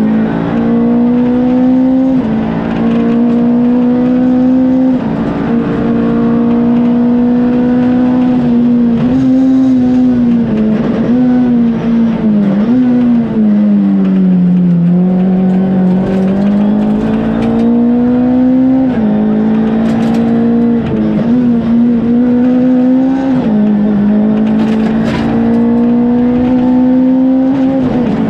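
Ford Fiesta R2 rally car's engine running hard at high revs, heard from inside the cabin. The revs hold high, dip briefly at each gear change, and drop lower about halfway through before climbing again.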